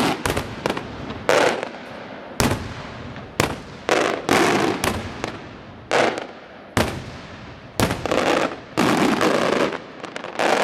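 Traditional Maltese daytime fireworks: aerial shells bursting in a rapid series of loud bangs, about one a second, several of them trailing off in a longer crackle of smaller reports.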